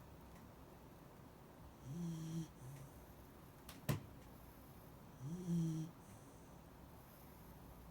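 Sleeping Shiba Inu snoring: two short, pitched snores about three seconds apart, each sliding up in pitch as it starts. A single sharp click comes between them, about halfway through.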